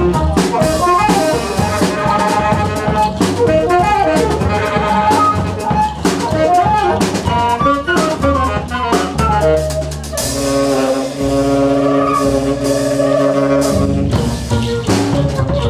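Live jazz band of flute, saxophone, bass and drum kit playing: a fast, busy melodic line over bass and drums, then about nine seconds in the band holds a sustained chord for several seconds before the quick playing starts again near the end.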